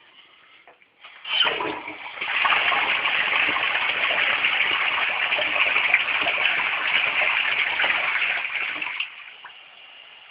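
Household toilet flushing six squares of toilet paper. The water comes in suddenly just over a second in and rushes loudly and evenly for about seven seconds. It drops sharply near the end to a quieter steady hiss as the tank refills.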